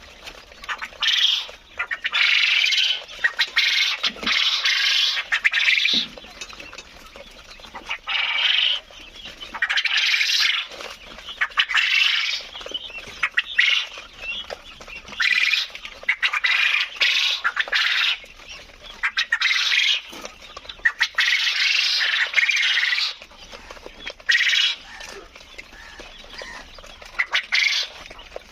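A flock of 53-day-old laying quail calling, in repeated loud, harsh bursts of about half a second to a second each, coming every second or two, with short clicks between them.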